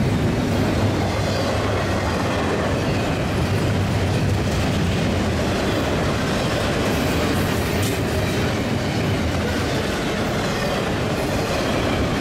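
Union Pacific double-stack container train's freight cars rolling by on the rails: a steady, unbroken noise of wheels on track.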